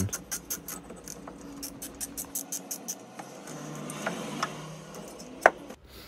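Light metallic clicking and scraping as the two bolts of a Subaru front brake caliper are unscrewed by hand, with many small clicks in the first two seconds and one sharp click near the end.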